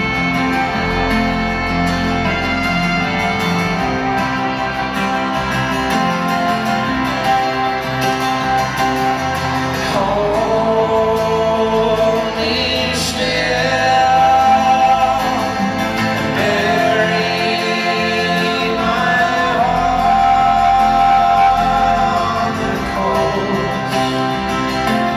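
Live folk-rock band playing in an arena: a fiddle leads with sliding notes over acoustic guitar, upright double bass and piano, all heard through the hall's sound system.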